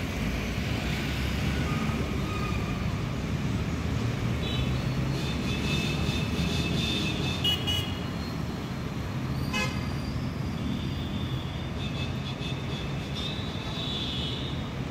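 Road traffic with vehicle horns honking, first about a third of the way in and again near the end, over a low steady engine rumble.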